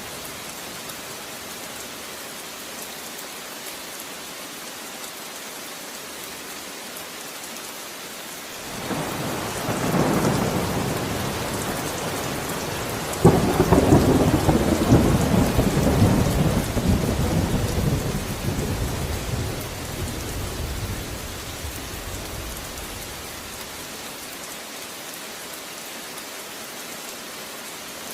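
Steady rain falling, with a thunderclap partway through: a low rumble builds, then a sudden louder crack about halfway in rolls away and fades over several seconds.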